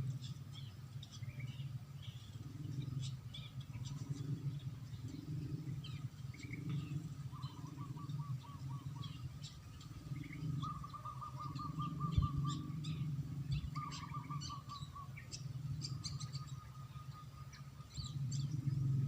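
Wild animal calls in riverside outdoor ambience: many scattered short chirps and clicks, and a rapid trilling call repeated three times, starting about seven and a half, ten and a half and fourteen seconds in. A steady low hum with a soft pulsing runs underneath.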